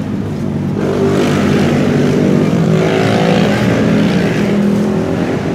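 Engine noise of a motor vehicle passing along the street, growing louder about a second in and easing off near the end.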